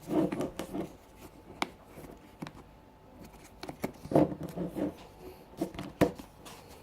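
Wera 7005C 1/2-inch drive torque wrench being worked by hand: irregular clicks and metallic clattering from its mechanism and from handling, in two clusters with a sharp single click in between and another near the end.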